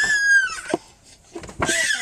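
An animal crying out: two drawn-out, high calls that fall in pitch, about a second apart.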